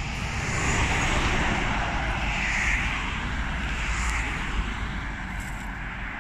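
Expressway traffic: cars and a lorry passing, a steady rush of tyre and engine noise over a low rumble, swelling a little as vehicles go by.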